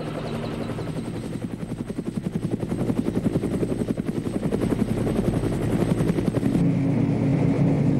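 Helicopter rotor chopping steadily, growing louder. Near the end it gives way to a steadier, lower engine drone.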